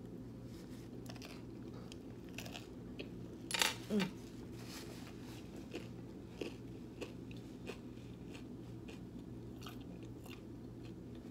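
Close-miked chewing and biting of a toasted sandwich with a crunchy crust: scattered small crunches and mouth clicks, with a louder bite about three and a half seconds in, over a steady low hum.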